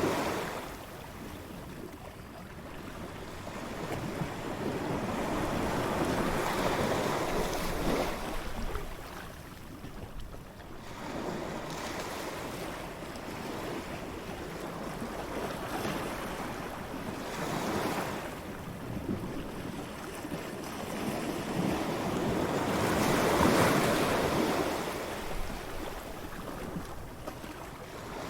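Ocean waves breaking and washing up on a beach, the surf swelling and falling back every few seconds, with the loudest wave about three-quarters of the way through. Wind blows steadily under the surf.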